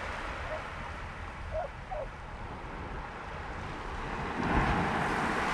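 Sea surf on a shingle beach: a steady wash of small waves, with a wave breaking and rushing up the pebbles, louder from about four seconds in. Wind rumbles on the microphone underneath.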